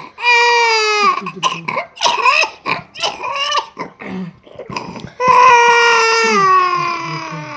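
Toddler crying: a long wail, a run of short sobs, then a second long wail starting about five seconds in that slowly falls in pitch.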